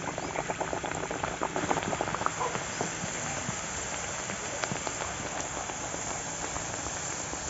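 Triangular nimki pastry deep-frying in hot oil in a kadai: a steady sizzle scattered with small crackles, busiest in the first few seconds and then settling to an even hiss.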